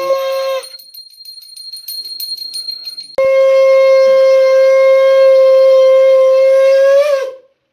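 A conch shell is blown in a loud steady note that stops about half a second in. A small brass puja hand bell then rings quickly for a couple of seconds. The conch then sounds again in a long steady note held about four seconds, lifting slightly in pitch just before it breaks off.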